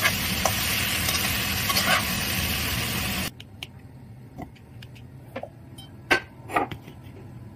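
Green beans and potato slices sizzling in a wok, with a metal spatula scraping as they are stirred. After about three seconds this cuts off suddenly to a quiet stretch with a few soft knocks of strawberries dropping into a ceramic crock.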